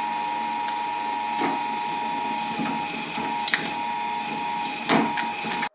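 Twin-shaft shredder running with a steady motor whine while its turning teeth knock against a plastic Barbie doll, giving a few sharp cracks, the loudest near the end. The sound cuts off suddenly.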